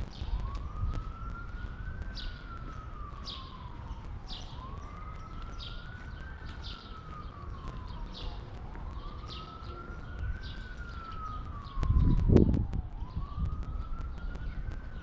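An emergency-vehicle siren in a slow wail: it rises over about two seconds, falls over about two more, and repeats about four times. A louder low rumble comes in near the end.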